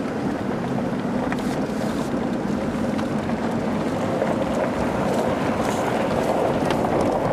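Steady engine and road noise heard from inside a car's cabin while driving on a rough dirt road, with a few light knocks and rattles.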